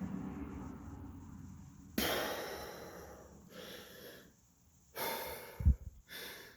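A man breathing heavily: a sudden long breath about two seconds in that fades away, then three shorter breaths, one with a brief low grunt. A low steady hum fills the first two seconds.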